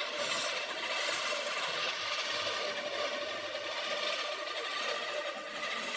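Manual push reel lawn mower cutting grass: the spinning reel gives a steady whirring, shearing sound.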